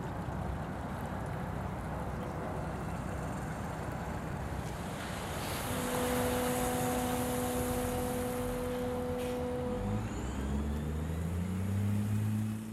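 Steady rushing noise, then from about halfway a road vehicle's engine holding a steady hum, which gives way near the end to an engine rising in pitch as it accelerates.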